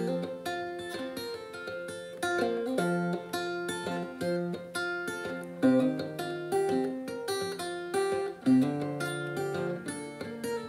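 1915 Gibson L-4 archtop acoustic guitar played solo: picked melody notes over a moving bass line, with two sharper accented notes about halfway through and again later.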